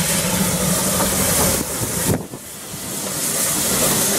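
Beyer-Garratt steam locomotive (South African Railways Class NG G16) hissing steam, with a sudden dip in the sound about two seconds in.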